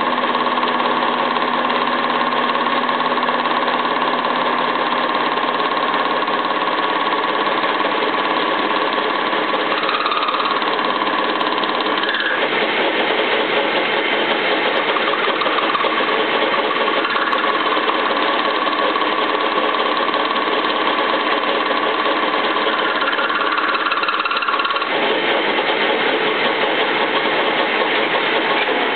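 Gustloff Werke metal lathe running and turning a metal part, the tool cutting steadily. A continuous machine whine sits over the cutting noise and shifts in pitch a few times.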